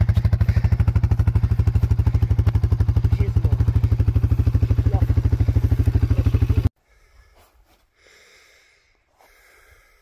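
Suzuki KingQuad quad's single-cylinder engine idling with a fast, even putter; it cuts off suddenly about two-thirds of the way through.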